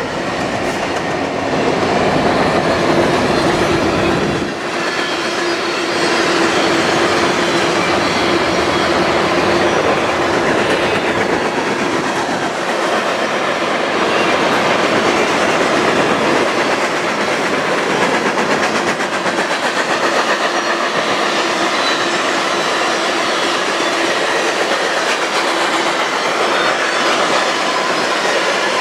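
A Union Pacific freight train passing close by. The deep rumble of its trailing EMD diesel locomotives fades about four seconds in. Then a steady clatter of freight-car wheels over the rail joints as tank cars and covered hoppers roll past.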